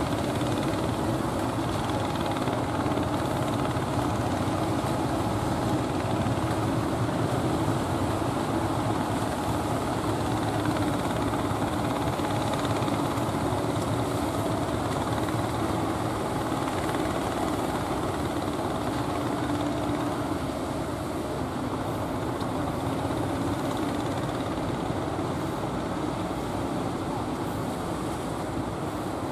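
Engine of a wooden fishing boat running steadily as it crosses rough water, a continuous low drone that eases slightly about two-thirds of the way through.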